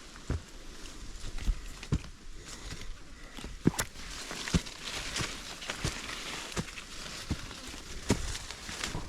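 Footsteps of a hiker climbing a steep mountain trail, irregular thuds every half second to a second, with a rustle through the middle.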